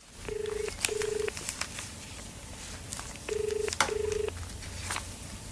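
Telephone ringing in a double-ring pattern, twice, about three seconds apart. A few faint clicks fall between the rings.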